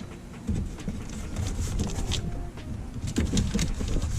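Handling noise from boxes being moved and opened: scattered clicks, knocks and rustling over an uneven low rumble.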